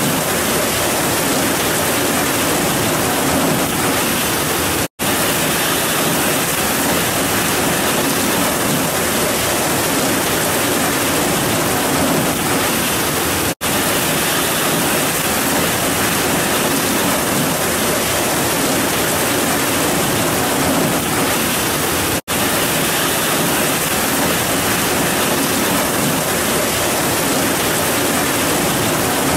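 Heavy rain falling in a steady, dense downpour, cut by three very short dropouts about nine seconds apart.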